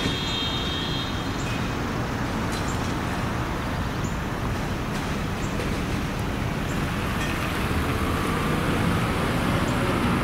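Steady road traffic noise, growing a little louder in the last few seconds.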